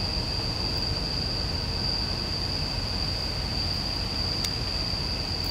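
Steady night-time outdoor ambience: a continuous high-pitched insect trill, typical of crickets, over a low, even rumble. There is one faint click about four and a half seconds in.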